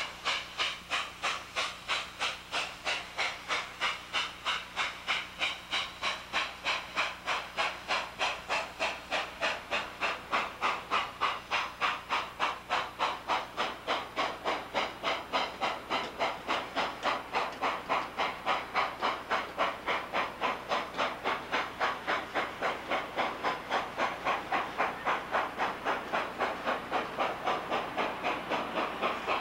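Chesapeake and Ohio 614, a 4-8-4 steam locomotive, working under steam: an even, fast beat of exhaust chuffs, about three a second.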